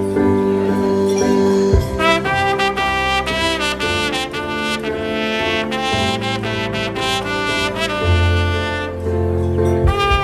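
Solo trumpet playing a melody, some notes held and some in quicker runs, over an accompaniment with a low bass line.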